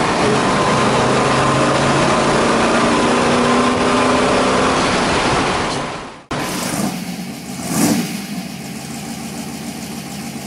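1965 Ford Mustang V8 heard from inside the cabin, pulling under throttle. About six seconds in it cuts abruptly to a Mustang V8 idling, with one short throttle blip about a second and a half later.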